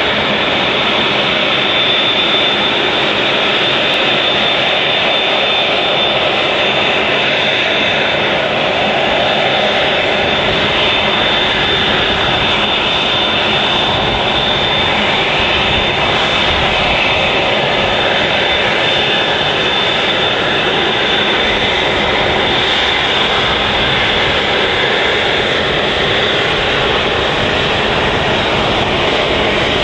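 Airbus A380's four jet engines running at taxi power: a loud, steady jet rumble with a thin high whine over it that is clearest in the first several seconds.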